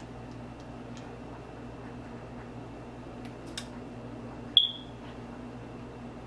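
Steady low hum with a few faint small clicks, and one short high-pitched beep about four and a half seconds in.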